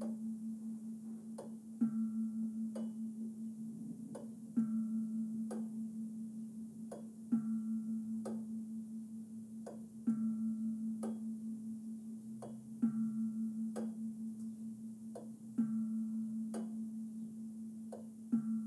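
Turret clock movement ticking about once a second, with a bell struck on every third tick, about every 2.75 s. Each strike rings on as a low hum that wavers as it fades.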